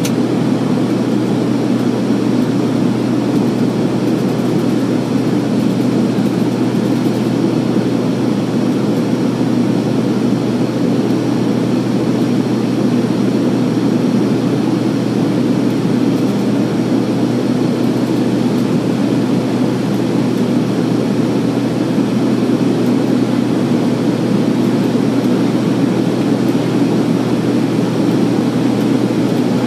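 Steady engine drone and rushing airflow heard inside the cabin of a small airliner in flight, with a constant low hum under it and no change in pitch or level.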